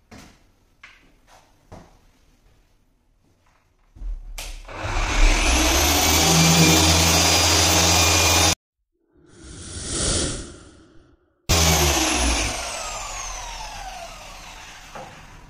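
A few light handling clicks, then an electric machine polisher with a coarse foam cutting pad starts about four seconds in and runs with a steady whine, compounding car paint. The sound breaks off abruptly twice, with a short swelling noise between, and near the end the polisher winds down in falling tones.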